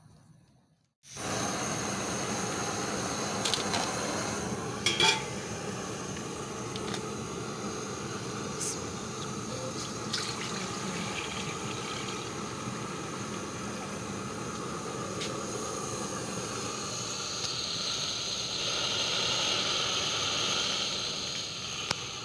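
Water pouring steadily from a plastic jug into a stainless-steel pot, with a few short clicks and knocks in the first ten seconds. The pouring sound grows brighter and a little louder near the end as the pot fills.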